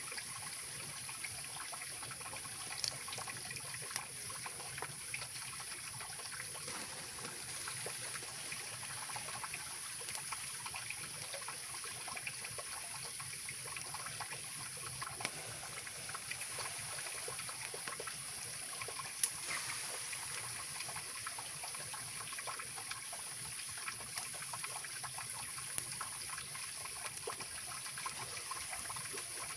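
Mountain river flowing steadily, an even rushing of water, with a few sharp pops from a wood campfire crackling.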